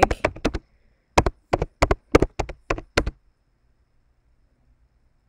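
Typing on a computer keyboard: about a dozen sharp key clacks in quick, uneven succession, stopping about three seconds in.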